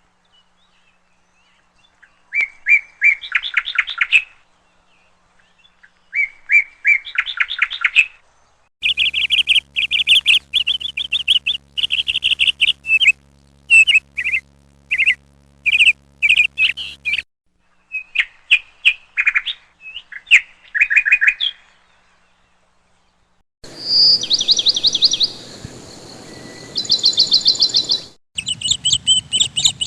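Birds chirping and trilling in short, repeated phrases, in several separate recordings joined one after another with silent gaps between them. One section has a low steady hum underneath, and a later one a background hiss with a fast high trill.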